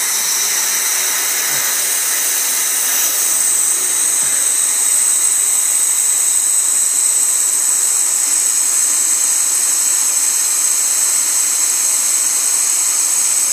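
Steady hiss of air being blown into a deer's trachea to reinflate its lungs, a little louder about three seconds in.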